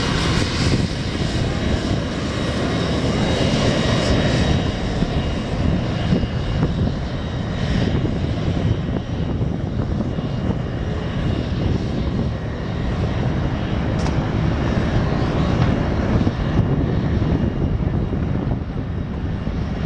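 Douglas TA-4 Skyhawk's jet engine running during a taxi: a steady roar with a high whine. The whine fades away about halfway through.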